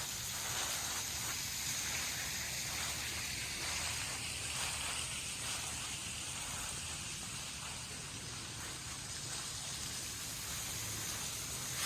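Waterfall running low, a steady rush of falling water.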